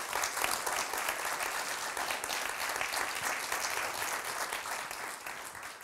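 Audience applauding, a dense clatter of many hands clapping that starts to fade near the end.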